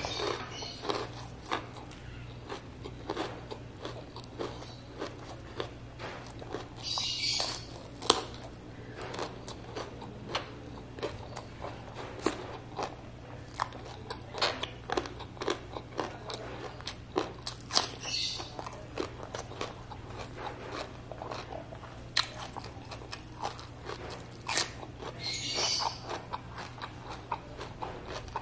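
Close-miked eating by hand: steady wet chewing and lip smacks with many small crisp clicks and crunchy bites. Three times there is a short hissing draw of air through the lips.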